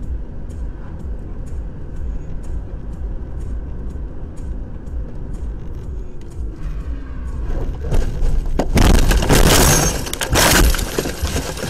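Car crash heard from inside the car: steady road rumble with a faint regular ticking, then about eight seconds in a loud, violent stretch of impacts and breaking glass lasting a couple of seconds, with a second loud burst about ten and a half seconds in.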